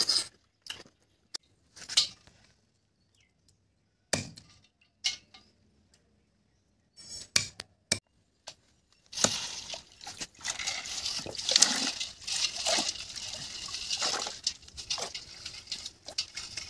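Freshwater snails being washed by hand in a steel bowl of water: water sloshing and swishing, with snail shells clinking against each other and the metal. This starts about nine seconds in, after a stretch of scattered small clicks and near silence.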